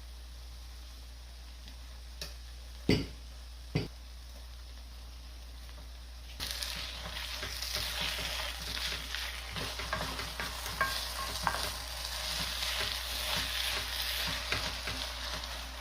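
Kimchi fried rice being stir-fried in a frying pan: a few sharp knocks at first, then from about six seconds in a dense sizzle with the spatula scraping and clicking against the pan, which cuts off suddenly at the end.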